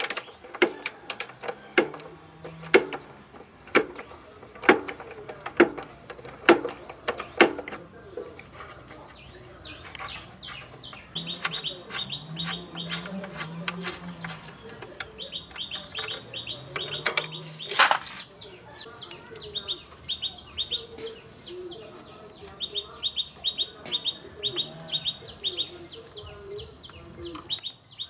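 Socket ratchet wrench working bolts on a motorbike frame: single sharp metal clicks about once a second at first, then from about halfway in several runs of rapid, even ratchet clicking.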